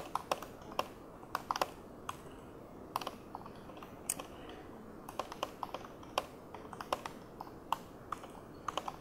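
Laptop keyboard being typed on: irregular keystrokes in short runs, with pauses between them.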